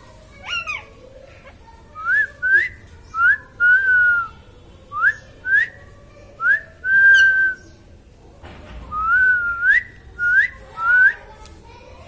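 Rose-ringed parakeet whistling: about a dozen loud, clear notes, mostly short upward-sweeping whistles in twos and threes, with a couple of longer held notes, after a brief falling call near the start.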